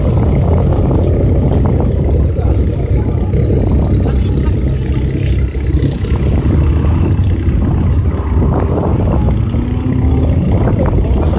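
Rally car engine running loudly at fairly steady revs, with a short rise in pitch near the end.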